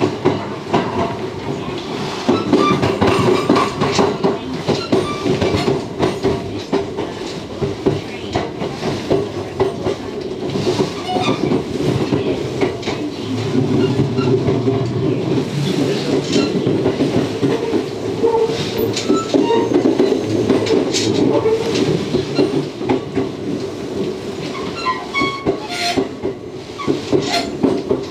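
Interior of a JR West 227-series electric train running: a steady running rumble, with the wheels clicking over rail joints and points.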